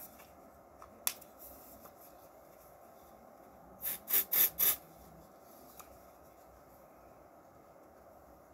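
Deodorant being applied under the arm: four quick scratchy rubbing strokes close together about four seconds in, after a single click about a second in.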